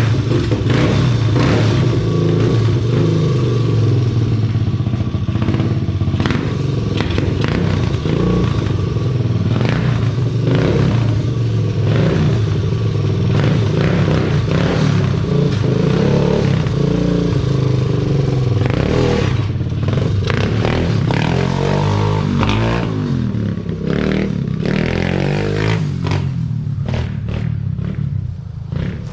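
A small vehicle's engine starts up suddenly and keeps running, its pitch rising and falling as it is revved, with some clattering over it.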